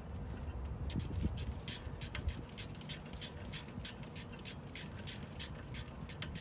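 Hand ratchet wrench clicking steadily, about three clicks a second, as the bolts of a rear brake caliper bracket are tightened.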